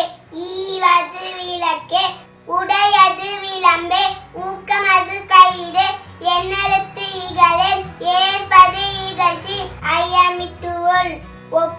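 A child's high voice singing a melody over a backing track with a low bass line.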